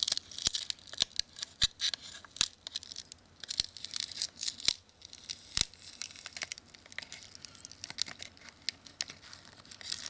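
Glued screen assembly of a Samsung Galaxy S2 being pried and peeled off its metal frame: the adhesive tape tears and crackles, with many irregular sharp clicks and snaps.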